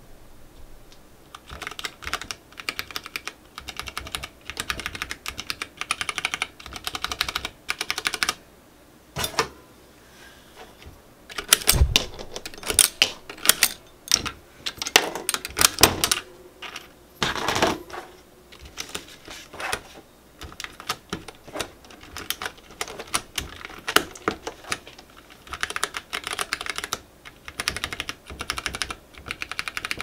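Typing on a mechanical keyboard with DSA-profile keycaps, some of them 3D-printed: quick runs of clacking keystrokes. In the middle the typing stops for louder, scattered clacks and knocks as keycaps are taken off and pressed back onto the switches.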